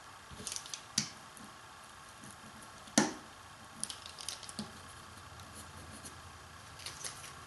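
Light handling sounds of hands and a small hand roller working a glued veneer applique onto a curved wooden chair rail: soft rustles and scattered clicks, with one sharp knock about three seconds in and a run of small clicks as the roller is pressed over the veneer.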